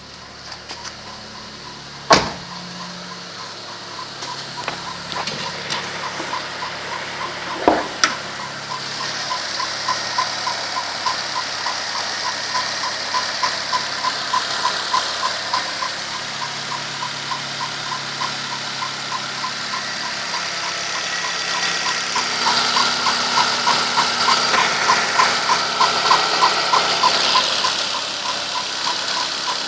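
Volkswagen Gol G4 1.0 engine running cold, with a fast, even ticking tap ('toc-toc') that gets louder toward the end; a sharp click sounds about two seconds in and another about eight seconds in. This is the morning cold-start knock that lasts about four minutes and then goes away, which the owner links to the hydraulic lifters.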